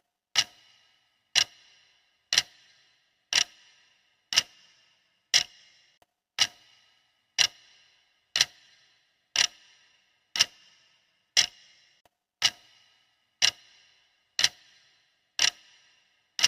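Clock ticking steadily, one sharp tick each second, each with a brief ring after it.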